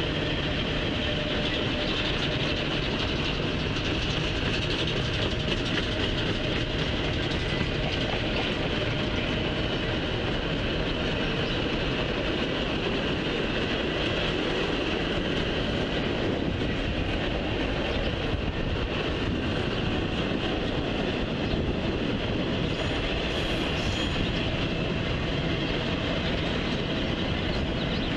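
Double-stack intermodal freight train's container well cars rolling past at steady speed: a continuous rumble and clatter of wheels on the rails.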